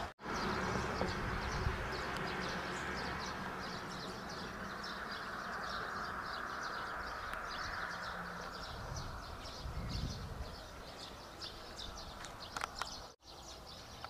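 Outdoor ambience of many birds chirping over a steady background hiss, with brief dropouts just after the start and near the end.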